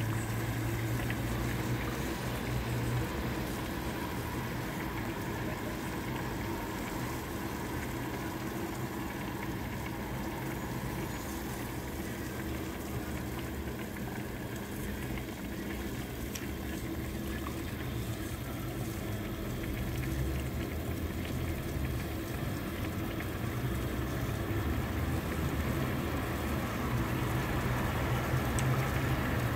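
Burners of a bottled-gas (LPG) oven running, a steady rushing noise with a low hum underneath.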